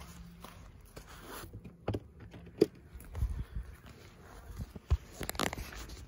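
Handling noise from a phone being moved about: scattered short knocks and rubs, a few of them sharper, with a faint steady low hum in the first couple of seconds.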